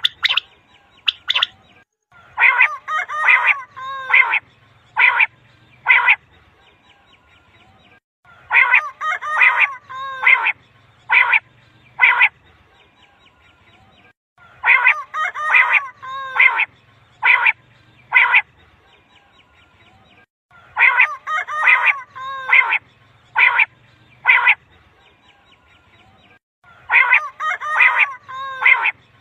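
Common quail calling: the same phrase, a quick cluster of calls followed by two single notes, repeated about every six seconds. It is a recorded quail call played as a hunters' lure call.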